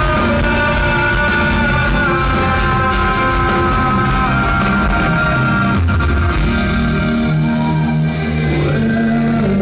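Live rock band playing a slow instrumental passage, with a guitar carrying a melody of long held notes.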